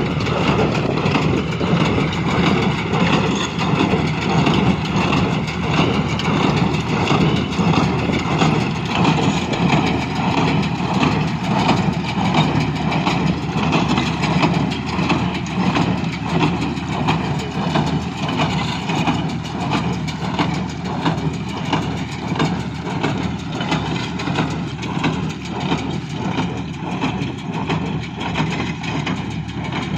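John Deere 5105 tractor running steadily while powering a New Holland BC5060 small square baler, whose mechanism works with an even, repeating beat.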